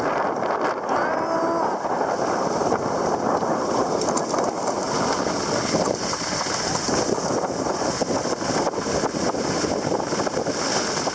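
Skis sliding and scraping over groomed snow while skiing downhill, with wind rushing over the microphone; a steady rushing noise without pauses.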